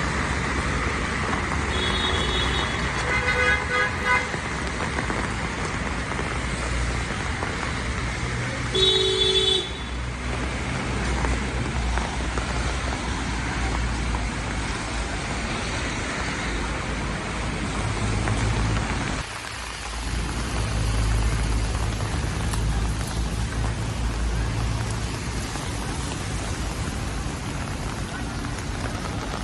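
City street traffic in the rain: a steady hiss of rain and tyres on wet road, with engines running low underneath. A car horn sounds briefly about two seconds in and again, louder and shorter, about nine seconds in.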